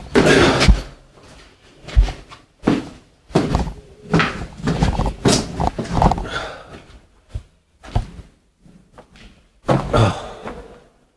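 Irregular footsteps, thuds and scrapes on floorboards strewn with debris, with a few sharper knocks, the loudest near the start and about two seconds in.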